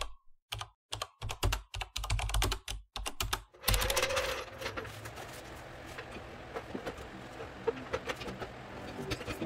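Rapid keyboard-typing and mouse-click sound effects of an on-screen subscribe-button animation, lasting about three and a half seconds. After that comes a faint steady hiss with scattered light clicks.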